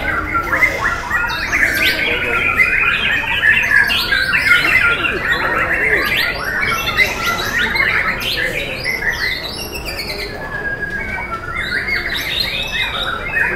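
White-rumped shamas (murai batu) singing in a contest: dense, overlapping runs of loud whistles and chattering phrases with no break, easing slightly about ten seconds in.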